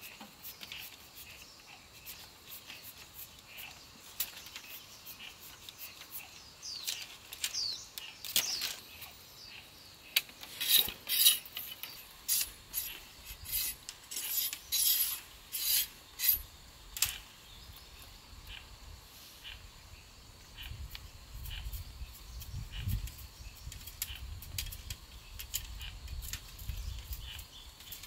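Thin bamboo strips being split and peeled by hand, with light crackling and a run of sharp snaps and clicks in the middle. A low rumble comes in near the end.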